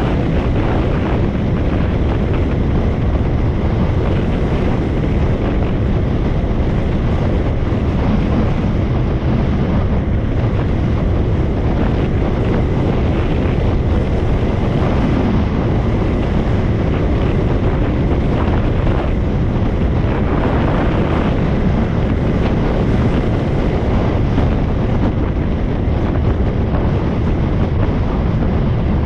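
Steady, heavy wind noise on the microphone of a moving motorbike, with the ride's road and engine noise underneath.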